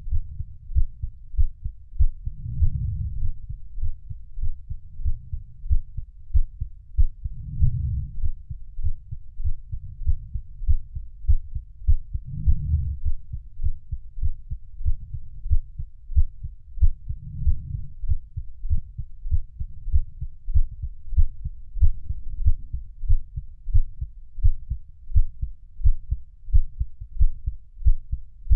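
Heartbeat sound: a steady, regular rhythm of low, muffled thumps. A soft low swell rises and fades about every five seconds.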